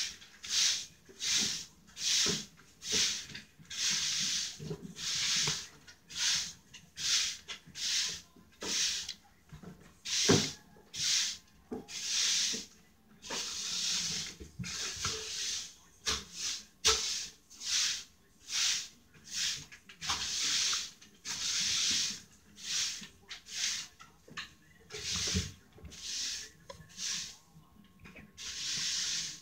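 Close-up eating sounds of horned melon (kiwano) pulp and seeds: a long run of short rasping noise strokes, about one or two a second.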